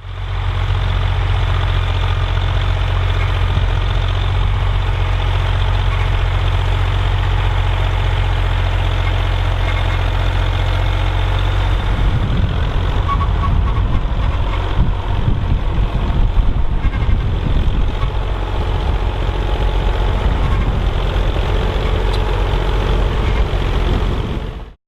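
Bukh Juno industrial tractor's engine running with a steady low drone, turning rougher and more uneven from about halfway through. The sound cuts off abruptly near the end.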